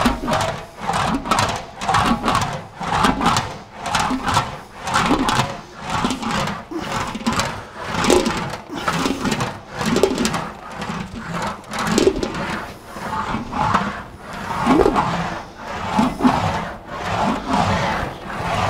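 Sheet-metal car panel rolled back and forth through an English wheel in regular passes, roughly two a second. The rolling sheet rings with short rising and falling tones as it goes.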